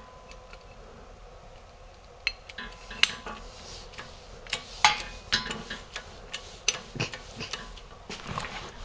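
Irregular metallic clicks and clinks of tools and parts being handled on a hydraulic shop press holding an engine case half, with sharper knocks about three and five seconds in.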